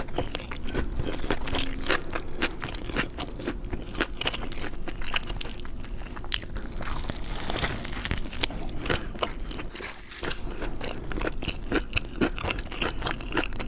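Close-miked eating: a person biting and chewing crunchy food, with many sharp, irregular crunches and crackles.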